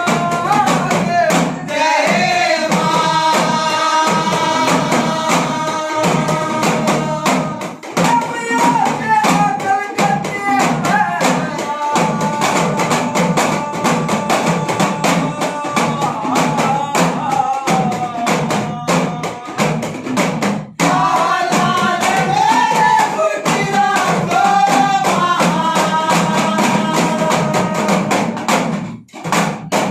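A man singing a Haryanvi Nath devotional song (bhajan) live, his voice holding and bending long notes, over fast, busy hand-drum accompaniment from small hourglass damru drums and other hand drums.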